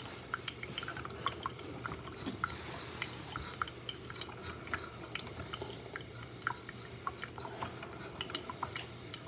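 Scattered light clicks and clinks of utensils and dishes being handled at a kitchen counter, over a faint steady low hum.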